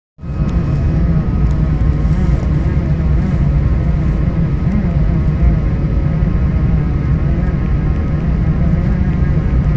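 Airplane landing: a steady, loud low rumble of engines and rushing air, with a few faint steady whining tones above it.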